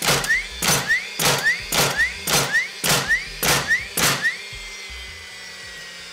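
DeWalt DCN692 18V cordless flywheel framing nailer firing nails into timber in bump-fire mode: eight dull thuds about every half second, each followed by a quick rising whine as the flywheel spins back up. After the last shot the flywheel's whine hangs on and slowly drops.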